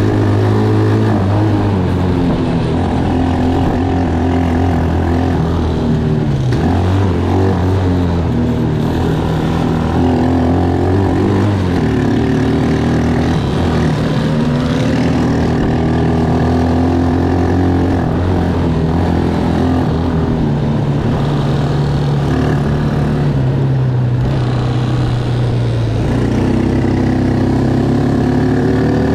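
Taotao ATV's small single-cylinder engine running under way. Its engine note rises and falls as the throttle changes, with a dip about six seconds in and another around three quarters of the way through.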